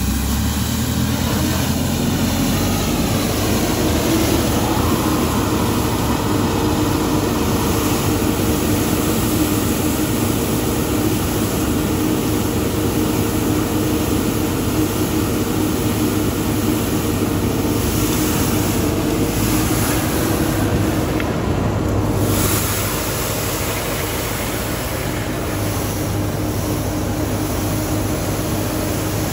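Mathieu Azur compact street sweeper running steadily, a continuous machine hum with a hiss over it. The sound drops slightly about two thirds of the way through.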